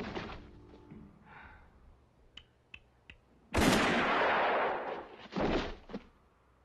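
Revolver gunshot from a western film's soundtrack, about halfway through: one loud sudden blast with a long trailing tail. A shorter loud burst follows under two seconds later, and a few faint clicks come before the shot.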